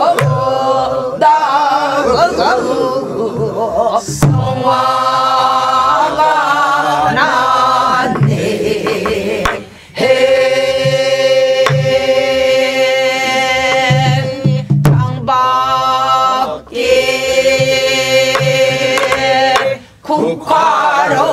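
A woman singing a Namdo folk song in Korean traditional style, with long held notes, to beats on a buk barrel drum struck with a stick.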